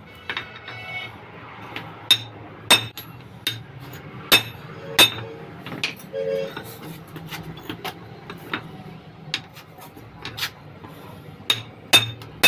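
Hammer striking metal in about a dozen irregular, sharp knocks, some ringing briefly, during work on a vehicle's propeller-shaft universal-joint cross.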